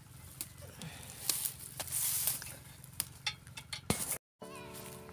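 Rustling and scraping of a phone carried against a shirt and a shoulder cloth, with scattered clicks and knocks. Just after four seconds the sound drops out briefly, then background music with held notes starts.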